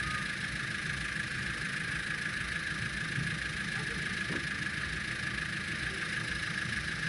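Subaru Forester's flat-four engine idling steadily, under a constant high hiss.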